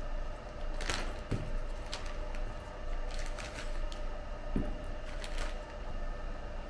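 Clear plastic bags crinkling as green cylindrical specimen moulds are pulled out, with two light knocks as moulds are set down on the bench, over a steady hum.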